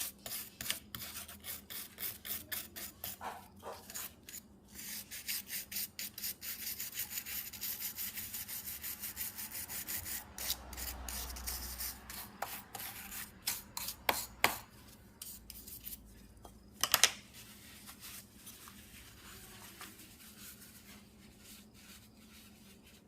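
A brush scrubbing a Tecumseh snowblower carburettor part, with rapid back-and-forth scratchy strokes about two a second, scouring off yellowed gas residue. A couple of sharp knocks come partway through, and the scrubbing then turns fainter.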